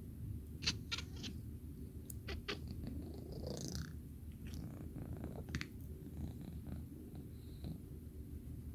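Domestic cat chattering: short sharp clicks in quick runs, about a second in, again around two and a half seconds and near five and a half seconds, over a steady low rumble.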